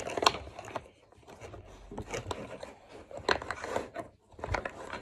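Plastic hexagonal game blocks clacking and scraping as they are fitted into a plastic tray: a few sharp clicks with quieter rubbing between them.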